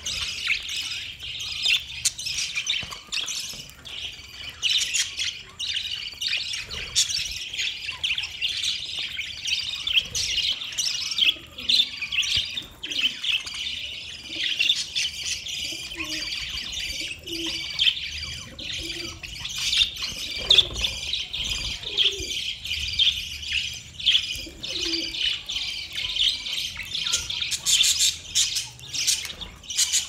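A flock of budgerigars chattering: a dense, continuous mix of quick chirps and warbles.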